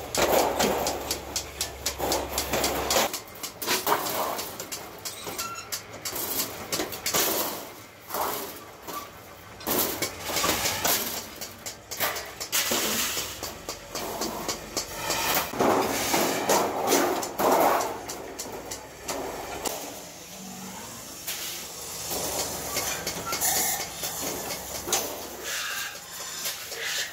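Thin galvanized iron sheet being cut with large hand shears and handled: irregular snipping clicks and the clatter of the thin metal sheet as it is moved and flexed.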